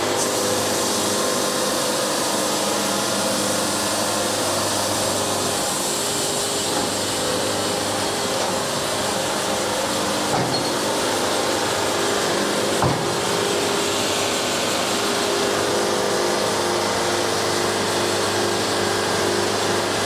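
Wood-Mizer LT70 bandsaw sawmill running steadily, its diesel engine under load while the band blade cuts a board off a walnut log. A single sharp knock sounds partway through.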